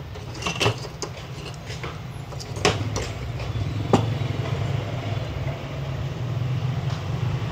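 Metal hand tools being picked up and handled on a wooden workbench: a few sharp clicks and clacks, the last about four seconds in, over a steady low hum.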